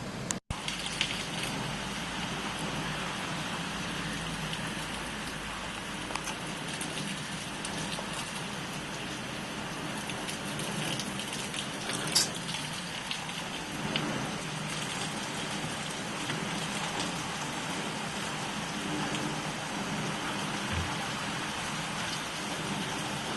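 Heavy typhoon rain falling steadily, with one sharp tap about twelve seconds in.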